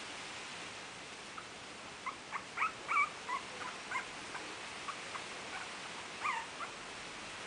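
Three-week-old Biewer Yorkshire terrier puppies whimpering: a run of short, high-pitched squeaks starting about two seconds in, loudest around the three-second mark and again near six seconds, then stopping.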